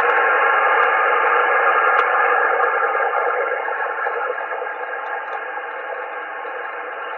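Yaesu FTDX10 HF transceiver's speaker hissing with 20-metre band noise through the narrow single-sideband receive filter, a steady static that eases a little about halfway through. A weak station is down in the noise.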